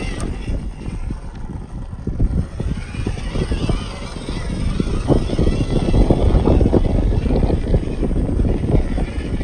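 MN99S 1/12-scale RC crawler's small 260 electric motor and gearbox whining as it drives over sand and rock, the whine rising and wavering from a few seconds in. Wind buffets the microphone with a loud, gusty rumble.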